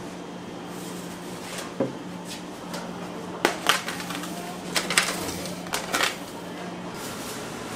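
Scattered knocks and clatter, as in kitchen handling of pans, over a steady low machine hum that stops near the end; a voice is heard faintly.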